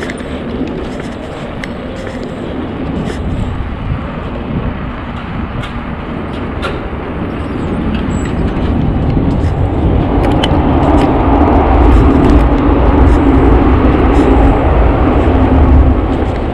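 Street noise of riding a bicycle through town, heard from a handlebar-mounted camera: a continuous rumble of wind and road noise with scattered light clicks, growing louder and heavier about ten seconds in.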